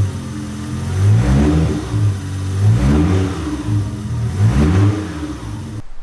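Toyota Soarer's 1JZ turbocharged inline-six engine being revved several times, the pitch rising and falling back with each rev.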